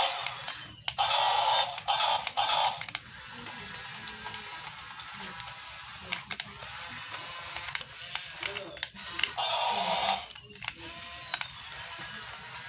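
Small electric gear motors of a toy RC mini excavator whirring in short bursts, with clicks and a steadier whir between them.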